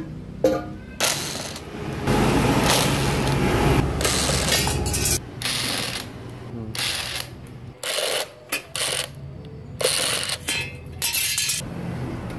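Cordless impact wrench running in bursts on the bolts of an old generator's housing during disassembly, with one long burst of about three seconds starting about two seconds in. Shorter bursts and metal clanks of tools and parts follow.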